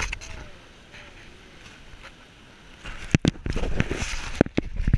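Handling noise from a GoPro Hero 3+ in its housing as a long-tailed macaque carries it off. It is fairly quiet at first, then from about three seconds in come a run of sharp knocks and scraping rubs on the case.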